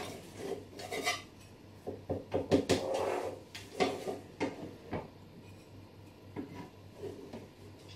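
Kitchen clatter of a spatula scraping and knocking in a metal loaf tin and of dishes being handled: a string of light knocks, clinks and scrapes, busiest two to five seconds in and thinning out after.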